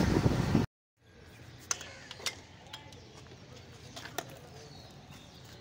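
Motorcycle riding noise, engine and wind, that cuts off abruptly under a second in; then a quiet background with a few sharp light clicks and taps, about four scattered over the next few seconds, as hands handle the rear of a parked Hero motorcycle.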